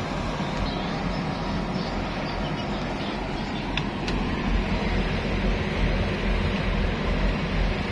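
Steady low rumble of a ship's engine heard on deck, with an even hiss over it; two faint clicks about four seconds in.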